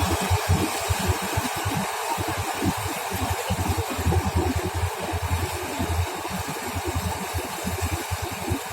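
Rice combine harvester running in the field, a steady engine and machinery noise.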